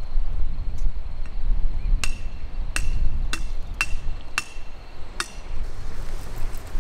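Wind rumbling on the microphone, with six sharp metallic clinks that each ring briefly, spaced about half a second to a second apart through the middle.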